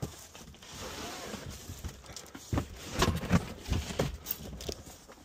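Cardboard box being opened: the flaps and packing rustle and slide for the first couple of seconds. After that comes a run of short knocks and bumps as the contents are handled.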